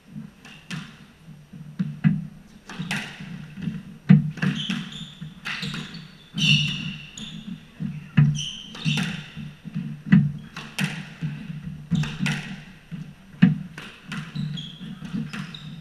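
Squash rally: the ball smacking off racquets and the court walls in irregular sharp cracks, the loudest a little after four seconds in. Rubber-soled court shoes squeal in short bursts on the hardwood floor between shots.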